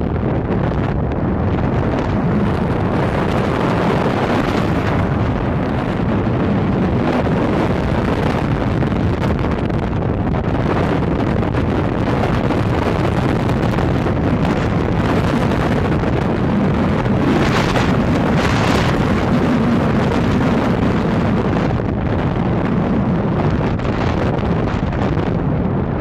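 Wind rushing over the microphone of a moving vehicle, over a steady low rumble of engine and road. A brief louder gust comes about two-thirds of the way through.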